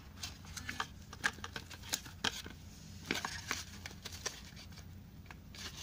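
Irregular clicks, taps and rustles of a cardboard box insert and a smartwatch's strap being handled as the watch is worked out of its packaging, with a denser burst of rustling a little after three seconds in.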